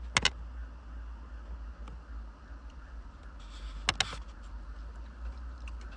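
A few sharp clicks, two just after the start and two about four seconds in, over a steady low hum.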